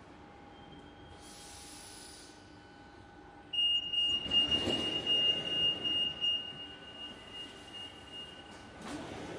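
Train wheels squealing on the rails over the low rumble of the carriage: a high steady screech starts suddenly about three and a half seconds in and lasts about five seconds, wavering in loudness.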